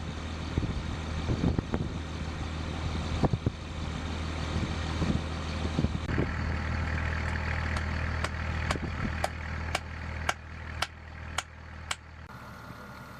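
An engine running steadily at idle with a low hum, and sharp clicks about twice a second over the second half. About a second before the end the hum drops away and a steady high-pitched tone takes over.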